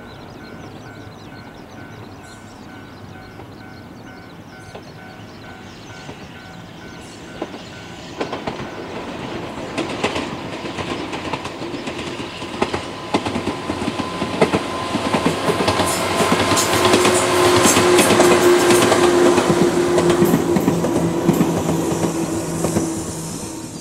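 Ohmi Railway electric train (set 822F) approaching and running past: the rumble and clack of its wheels over the rail joints build from about a third of the way in. A steady hum joins as it comes closest near the end, then the sound begins to fade.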